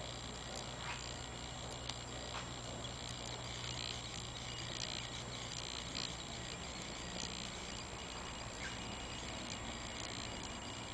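Steady hiss of room tone with a low hum that fades about halfway through, and a few faint clicks.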